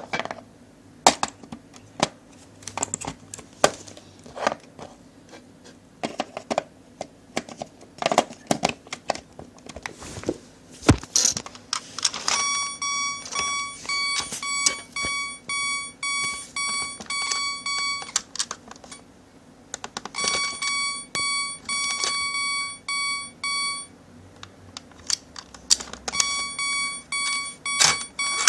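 Plastic toy parts clicking and rattling as they are handled, then, about twelve seconds in, a Plarail Electro level-crossing toy sounding its electronic warning bell: a beep repeating about twice a second, which stops and starts again twice.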